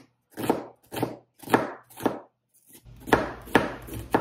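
Knife slicing a red onion on a cutting board: about seven even chops, roughly two a second, with a short pause midway.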